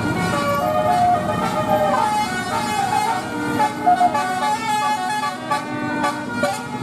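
Bus 'telolet' musical air horn playing a tune: a quick run of notes that step up and down, often several sounding together.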